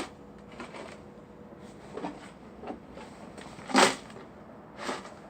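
Four irregular hard knocks, the loudest a little past the middle: a frozen plastic milk jug being struck to crush the ice inside.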